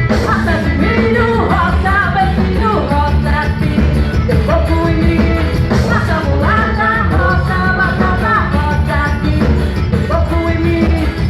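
Forró band music with a singer's voice over it, loud and steady, with a heavy bass line underneath.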